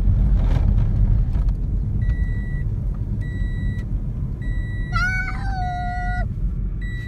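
Car cabin noise as the car rolls along in neutral: a steady low rumble of tyres on the road. About two seconds in, a dashboard warning chime starts beeping, roughly one beep every second and a bit. About five seconds in, a small child gives a short high cry that lasts about a second.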